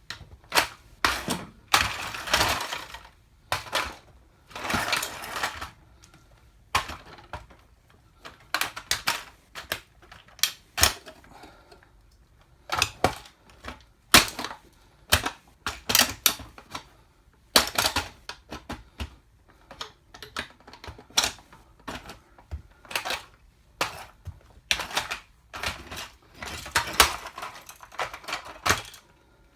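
A toy car cracking and crunching under the platform soles of high heels: irregular sharp cracks and clicks with short grinding crunches, some lasting about a second, coming in uneven bursts throughout.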